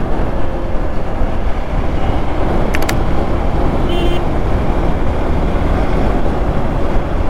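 Hero Xpulse 200 4V motorcycle riding through town traffic, heard as a steady rush of wind and road noise on the camera's microphone with the engine beneath. A short vehicle horn beep sounds about four seconds in, just after a pair of sharp clicks.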